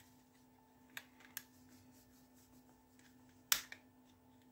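Sharp plastic clicks as a plastic card pries apart the snap-fit seam of a white OPPO wireless-earbud charging case, its clips letting go. Two light clicks come about a second in, then a louder double click about three and a half seconds in.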